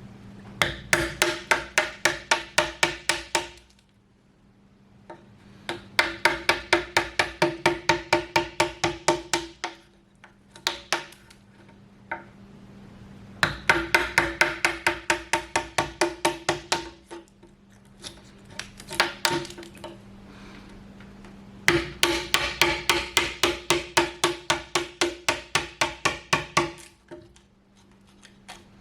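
Rapid hammer blows on a timber, about eight a second, in four runs of three to five seconds with a few single strikes between, each blow with a short ringing note, knocking the waste pieces out of a hole cut through a 6x6. A faint steady hum sits under it.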